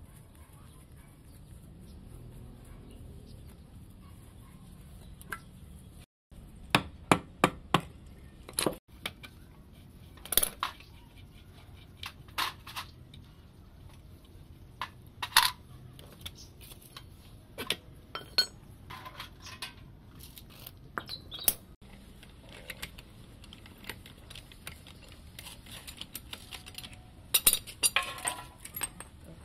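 Metal parts and tools clinking and knocking as a rusty old D8 diesel engine is taken apart by hand: scattered sharp clinks, a quick run of about five a quarter of the way in, and a busier cluster near the end.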